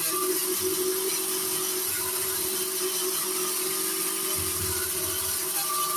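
Grinder fitted with sandpaper sanding a stainless steel roll bar: the motor runs at a steady pitch over a continuous hiss of abrasive on metal.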